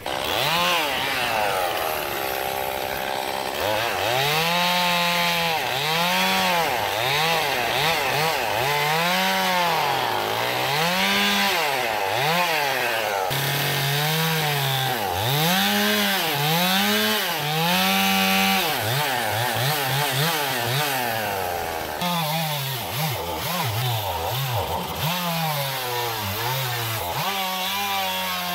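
Gasoline chainsaw cutting through a fallen tree trunk, the engine revving up and dropping back in pitch again and again, about once a second.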